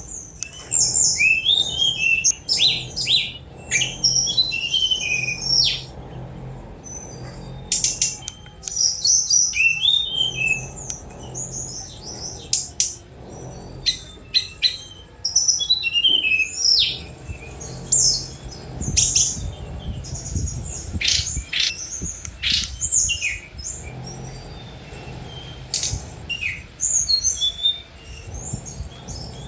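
Tledekan gunung (brown-chested jungle flycatcher) singing a fast, varied song of short high chirps and quick down-slurred notes, in bursts separated by brief pauses.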